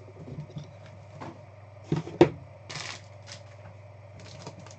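Trading cards in hard plastic holders being handled and set down on a table: a few sharp clacks and taps, the loudest about two seconds in, followed by a brief rustling slide and lighter taps.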